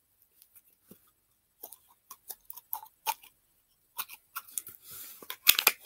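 Hands working slime and its small plastic container: scattered soft clicks and sticky crackles, sparse at first and growing more frequent in the second half.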